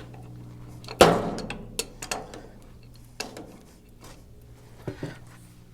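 Metal tool clanks and clicks as an adjustable wrench is picked up and used to tighten a fitting on the tractor's steering, with one loud clank about a second in and a few lighter knocks after.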